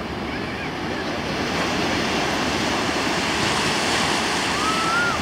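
Ocean swell and surf washing in, with wind buffeting the microphone; the surge grows louder about two seconds in.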